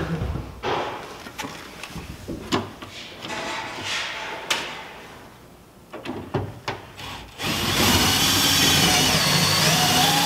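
Clicks and knocks of a speaker being handled into its mounting hole, then about seven seconds in a cordless drill starts driving a self-drilling screw into the speaker mount. The drill runs loud and steady, its pitch dipping and rising as the screw bites.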